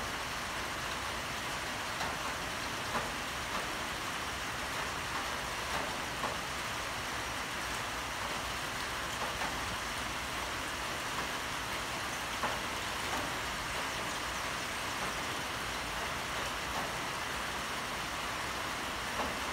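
Steady light rain shower falling, an even hiss with scattered small drip taps.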